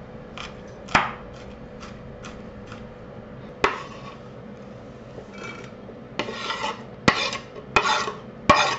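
A kitchen knife scraping diced onion off a wooden cutting board. First a few scattered knocks and light taps on the board, then, in the second half, a run of short rasping scrapes, about one every half second.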